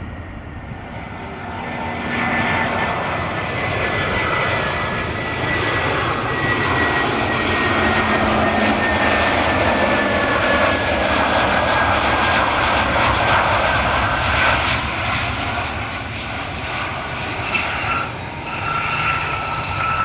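Jet airliner's turbofan engines as it passes on landing approach: a loud rushing noise that swells, holds and then eases, with a thin engine whine that slowly falls in pitch.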